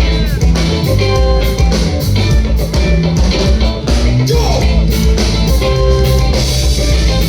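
Live band playing a song: guitar over bass and a steady drum beat.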